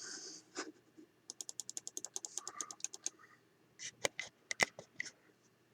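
Small reloading tools and parts being handled on a bench: a quick run of light clicks, about ten a second, followed about a second later by a few sharper single clicks.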